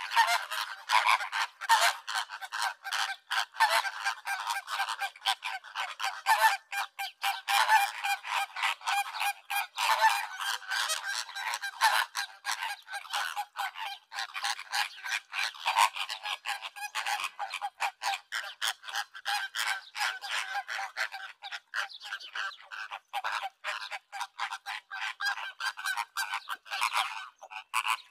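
A flock of greater flamingos calling all together: a dense, continuous chatter of many short, overlapping calls.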